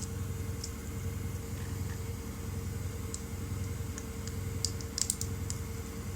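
Scattered small, sharp clicks and taps of handling and tools on laptop parts, a few close together near the end, over a steady low hum.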